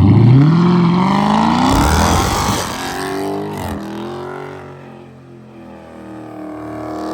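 A Dodge Charger's V8 accelerating hard. The engine note climbs steeply for about two and a half seconds, then drops away and fades as the car pulls off.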